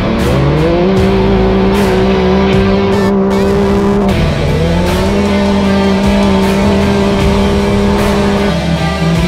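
Off-road race car's engine heard from inside the cockpit under racing load. Its pitch climbs early, holds steady, dips briefly about four seconds in and climbs back, with knocks and rattles from the rough dirt track.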